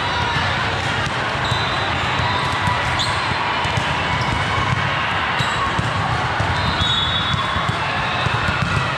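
Indoor basketball sounds: a ball bouncing on a hard court over a steady din, with short high squeaks scattered through.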